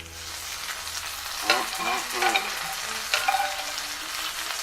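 Sausage, tomatoes and peppers sizzling in a frying pan, with a steady hiss, as the pan is stirred. A few short squeaky scrapes come about a second and a half in and again just after three seconds.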